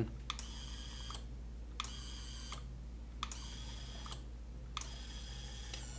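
Small DC gear motor whining as it drives the model gate's rack and pinion closed. It runs in four short bursts of under a second each, each starting with a sharp click, and turns only while the close button is held.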